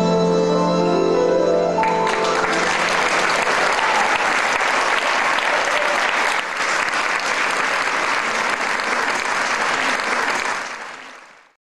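The last notes of a tango quintet with bandoneon, violin, guitar and piano end about two seconds in. A large audience then applauds steadily, and the applause fades out near the end.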